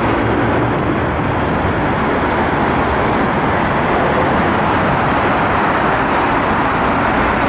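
ED4M electric multiple unit running through the station at speed without stopping: a steady loud rolling noise of wheels on rails.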